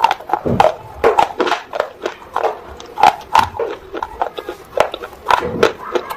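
Close-miked chewing of crunchy baked clay: an irregular run of crisp crunches and clicks with wet mouth sounds between them.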